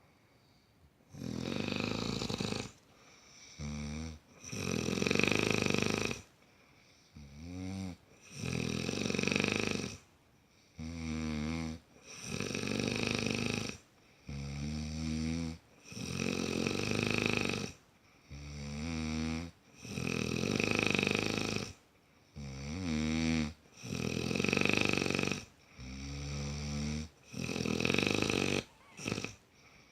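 A man snoring loudly in a steady rhythm, about eight breaths: each is a short pitched snort followed by a longer, louder rasping snore, with brief quiet gaps between.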